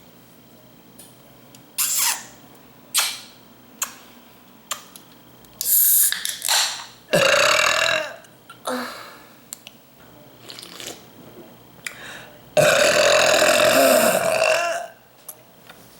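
A woman burping loudly several times, from a carbonated sugar-free Rockstar energy drink. The burps are mostly short, and a long drawn-out one of about two and a half seconds comes near the end.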